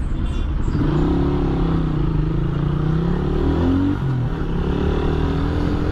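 Single-cylinder Suzuki Raider 150R motorcycle engine running under way, its pitch rising, dipping briefly about four seconds in, then climbing again, over a steady rush of wind and road noise.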